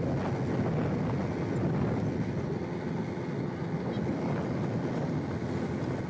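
A motorcycle riding along a road: its engine runs steadily under an even rush of wind over the microphone.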